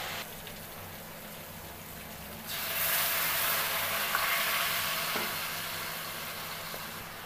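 Spice paste sizzling in hot oil in a metal wok while a steel spatula stirs and scrapes it. The sizzle grows louder about two and a half seconds in, then slowly eases off.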